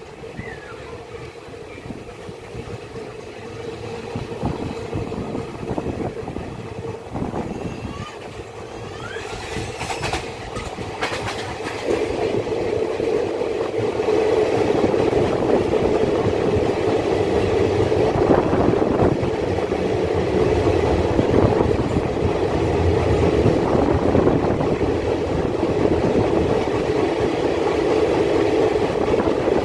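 Passenger train coaches running at speed, wheels clattering on the rails with a steady hum under it, heard from an open coach door. About twelve seconds in the train enters a tunnel and the running noise becomes clearly louder.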